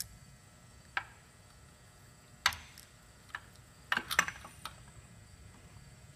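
Short sharp metal clicks and clinks, about six of them and louder around two and a half and four seconds in, from working the piston pin out of a piston on a Pratt & Whitney R-985 radial engine.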